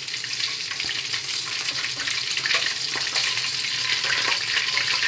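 Thai fishcakes deep-frying in a wok of hot vegetable oil: a steady sizzle with fine crackling.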